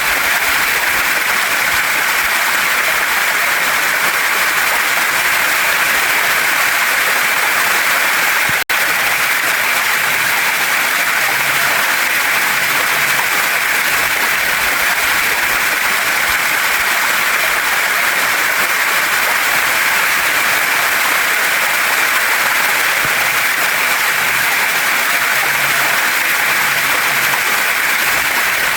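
Waterfall and mountain stream water rushing steadily, an even hiss with no change in level. The sound cuts out for an instant about nine seconds in.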